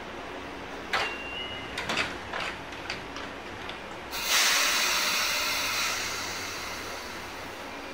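Electric commuter train's sliding doors shutting with a short series of clicks and knocks, then about four seconds in a loud burst of compressed-air hiss that fades away over a few seconds, as the train readies to depart.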